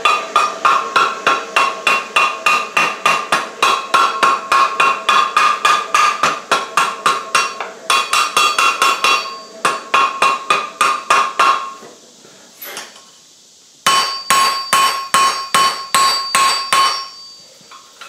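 Blacksmith's hand hammer striking hot steel on an anvil in a fast, steady rhythm of about four blows a second, each blow with a ringing metallic tone. The blows stop about twelve seconds in, then start again for a run of about eight blows lasting about three seconds.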